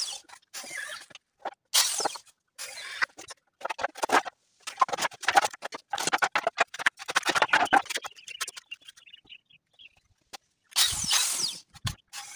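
Corded power drill running in short bursts, driving or backing out screws in softwood boards. Between the bursts, loose wooden planks knock and clatter together as they are lifted off the frame and stacked.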